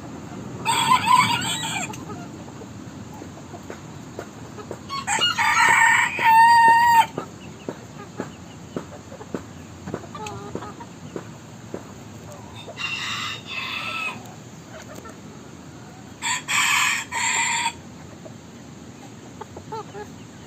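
Bantam rooster crowing four times, each crow a pitched call lasting one to two seconds, the second one the longest and loudest, over steady yard background with scattered faint clicks.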